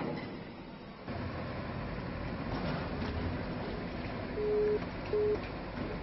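Steady low noise and hum from an open broadcast audio line carrying no speech, with two short beeps at the same pitch a little over four and five seconds in. The remote line to the reporter has failed.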